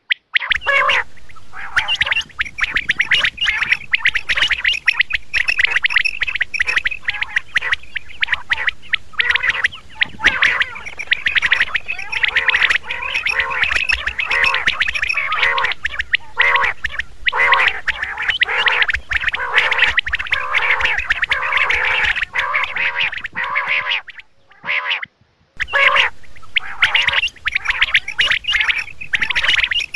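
Quail calling: a dense run of short calls in quick succession, with a break of about a second and a half near the end.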